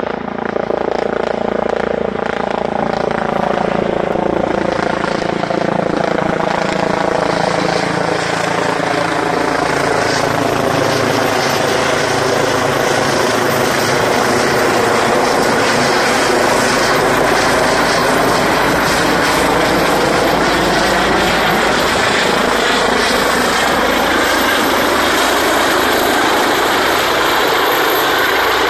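ADAC air-rescue helicopter flying in low overhead and coming in to land, its rotor and turbine sound loud and steady throughout, with the pitch sliding down over the first few seconds as it passes.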